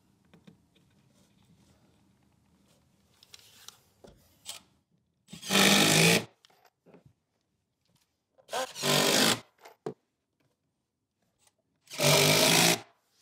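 Cordless drill-driver running in three short bursts, each under a second, driving 2-inch GRK screws through the back of a hardwood riser into the stair tread.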